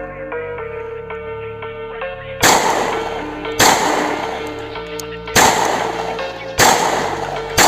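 Five 9mm pistol shots, the first about two and a half seconds in, then roughly one every second or so, each followed by a long echo; background music plays underneath.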